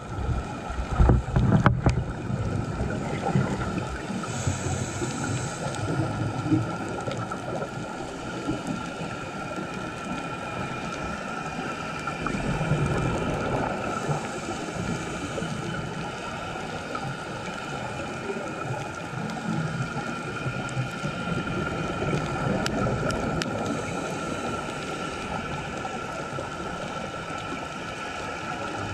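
Underwater ambience through a camera housing: a steady hiss with a constant faint hum, and a diver's scuba regulator breathing in slow cycles, a low bubbling rush of exhaled air about every nine or ten seconds. A couple of sharp knocks near the start.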